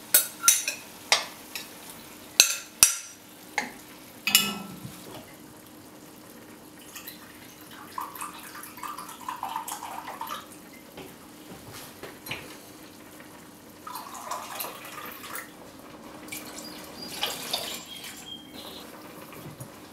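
A metal spoon knocks and scrapes against a plastic measuring cup several times in the first few seconds as tomato mixture is emptied into a pot. Then come two stretches of liquid pouring and splashing, broth being poured from a carton into a glass measuring cup, with a few light clinks.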